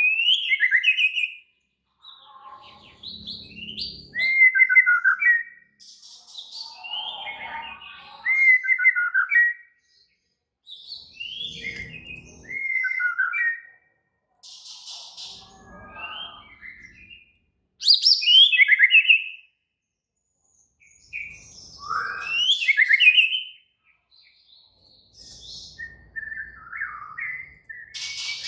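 White-rumped shama (murai batu) singing an agitated, fired-up song: loud phrases of rapid, sliding whistles and chattering notes, each a second or two long, broken by short silent gaps. This is the aggressive song used to rile up other male shamas.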